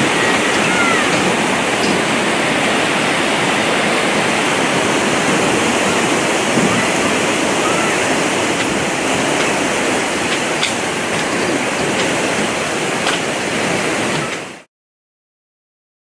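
Steady rushing of river water pouring over a low weir. It cuts off abruptly near the end, leaving silence.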